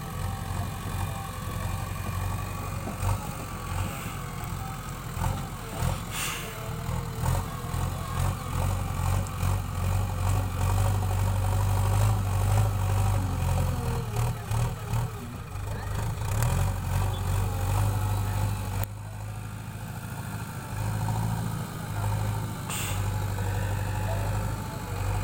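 Diesel engine of a JCB 3DX backhoe loader running steadily, with a deep, even hum. It drops suddenly to a lower level about two-thirds of the way through, and two short, sharp knocks are heard, one early and one near the end.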